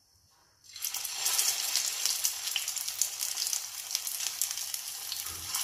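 An upma tikki (semolina patty) put into hot oil in a shallow pan, the oil starting to sizzle suddenly under a second in and then sizzling steadily with a scatter of crackles as it shallow-fries.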